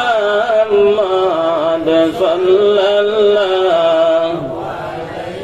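A man's voice chanting a slow melodic line in long held notes that waver and bend, with no plain speech. The chant tails off about four seconds in.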